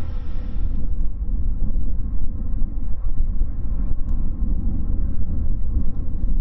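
Boeing 787-8 jet engines at taxi power: a steady low rumble with a fainter engine whine above it. A brighter, many-toned whine cuts off abruptly about a second in, leaving mostly the rumble.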